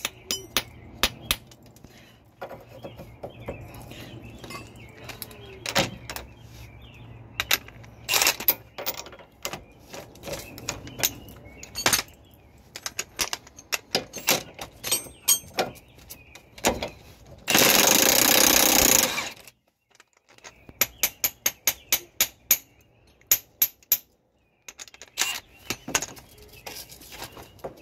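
Cordless Milwaukee impact wrench hammering for about two seconds, about two-thirds of the way in, as it loosens a nut holding the lower ball joint to the control arm. Around it are metal clinks and knocks of the socket and tools being fitted.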